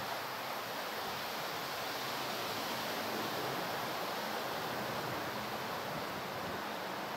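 Steady, even hiss of wind outdoors.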